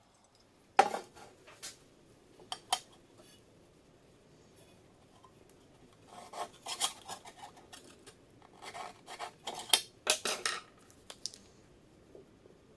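A metal frying pan and a steel ruler being handled: a sharp metal clank about a second in, a few lighter taps, then clusters of clinks and scrapes while the pan is marked with a pencil along the ruler.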